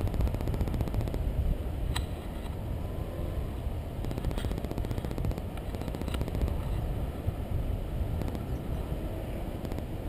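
Wind buffeting the microphone in flight under a paraglider: a steady low rumble and rush of air, with a few faint sharp clicks.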